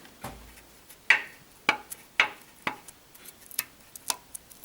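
Irregular light metallic clicks and taps, about one or two a second, from parts being handled on a stripped-down engine.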